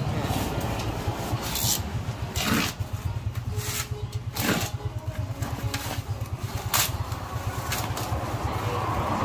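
A utility knife cutting and hands pulling apart the bubble wrap and plastic packing tape of a parcel: scraping and crinkling in about five short bursts, over a steady low hum.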